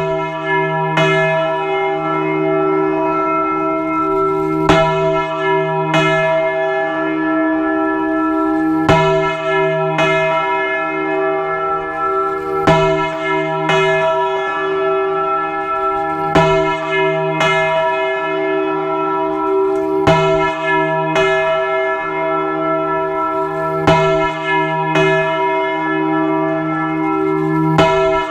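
A large cathedral bell swinging full circle (Spanish volteo), its clapper striking in pairs of strokes about a second apart, a pair roughly every four seconds. Between strokes the bell keeps ringing on with a continuous hum.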